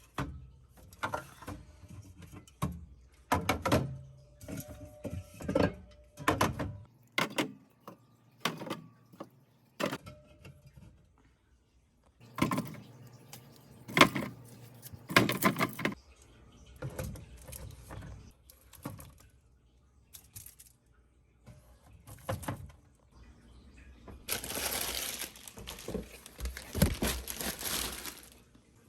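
Pantry containers, jars and grocery packets being handled: a long run of irregular knocks, clicks and clatter as items are picked up and set down, with a few seconds of steady rustling near the end.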